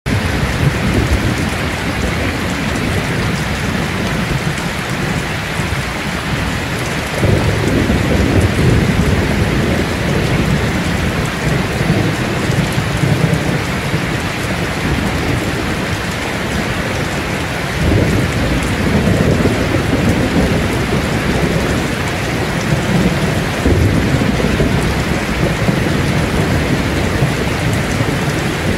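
Heavy rain pouring steadily onto a metal roof. Three low rolls of thunder rumble under it, starting about a quarter of the way in, again past the middle, and once more a few seconds later.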